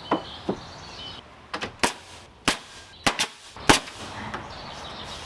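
Pneumatic nail gun firing nails into wood: about seven sharp cracks at irregular intervals.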